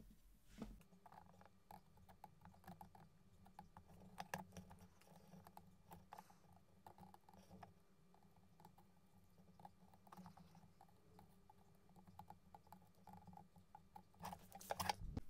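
Near silence, with faint small clicks and taps of pliers and a soldering iron working on the wires of a drone's circuit board, over a low steady hum. A few louder knocks come near the end.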